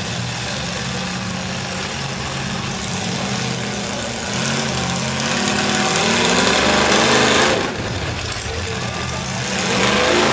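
Demolition derby truck engines running. One revs up from about four seconds in, drops off sharply near eight seconds, and revs up again near the end.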